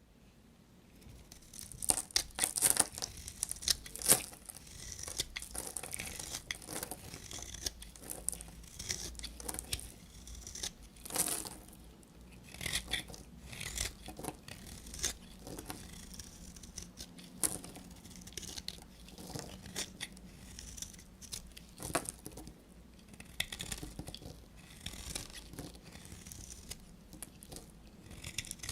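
Bars of soap being cut with a knife: a long run of crisp, crunchy cracks and scrapes at an irregular pace, some much louder than others.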